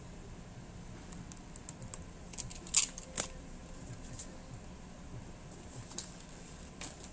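Scattered light clicks and taps of a craft knife, rubber sheet and wooden table tennis blade being handled on a cutting mat. The loudest are two sharp clicks close together about three seconds in.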